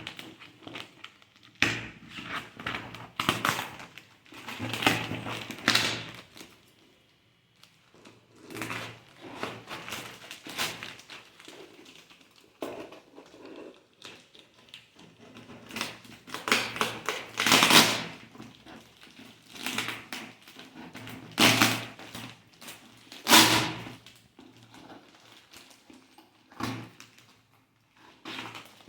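A large cardboard parcel being unpacked by hand: irregular rustling, crumpling and tearing of the packaging, with a few louder bursts in the second half.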